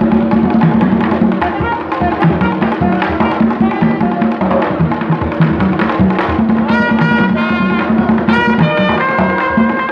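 Live Haitian folk band music: tall hand drums play a steady, driving rhythm, and about two-thirds of the way in, saxophones and a trumpet come in with held notes over the drums.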